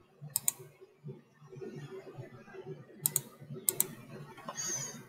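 A few sharp clicks of a computer keyboard, once about half a second in and a quick group around three seconds in, over a faint low murmur.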